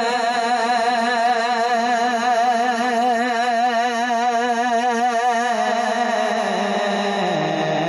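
A man singing an Urdu naat unaccompanied, holding one long note with a wide, even vibrato for about five seconds, then sliding down in pitch before taking up a new note near the end.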